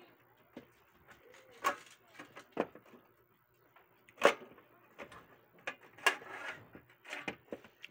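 Sheet-metal top cover of a DVR being worked loose and slid off its chassis: a series of metal clanks and scrapes, the loudest clank about four seconds in.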